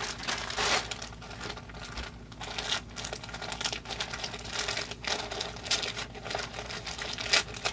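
Packaging crinkling and rustling in irregular bursts as a parcel is opened by hand.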